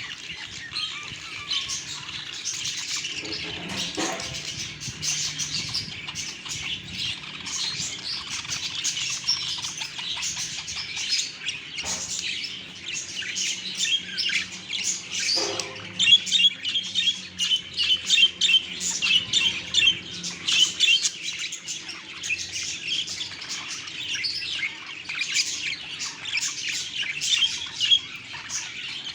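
Budgerigars chattering and warbling nonstop, a dense mix of quick chirps and trills, getting busier and louder about halfway through.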